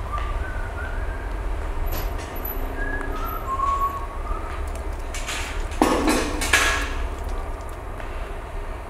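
Steady low hum with a few faint short squeaks. About five seconds in comes a louder burst of rustling and sloshing, lasting a second or two, as wet laundry is handled over a metal bucket.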